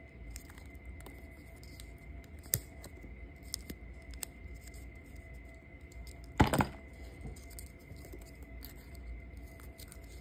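Hands handling jewelry-making materials at a work table, a paper tag and clear wire: scattered small clicks and light rustles, with a louder short burst of handling noise about six and a half seconds in. A faint steady high-pitched whine runs underneath.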